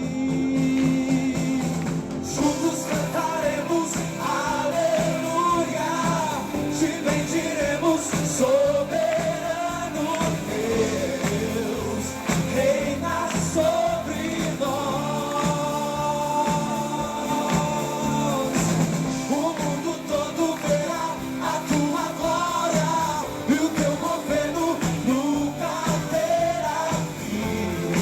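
Live worship band playing a pop-rock style song, with a wavering vocal melody over the band.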